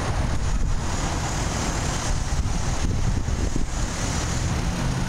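Outdoor city construction-site ambience: a steady low rumble of traffic and machinery, with wind buffeting the microphone.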